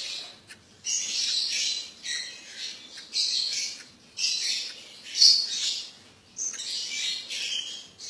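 Lovebirds calling: a string of short, raspy, high-pitched calls, about seven of them, repeated every second or so.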